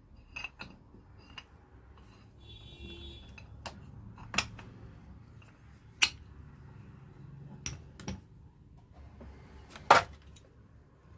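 Metal tools and starter-motor parts clinking and knocking while being handled during the repair of a 24-volt Bosch starter motor: scattered sharp clinks, a short ringing jingle about three seconds in, and the loudest knock near the end.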